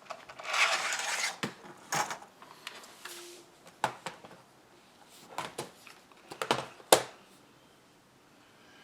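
Hard objects being handled and set down on a desk: a rustling scrape about half a second in, then scattered knocks and clicks, the sharpest near seven seconds.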